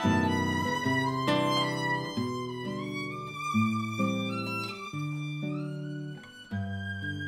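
Violin and acoustic guitar playing an Argentine zamba: the violin climbs slowly through long bowed notes over the guitar's chords. Just past six seconds the music drops away briefly, then a new chord comes in louder.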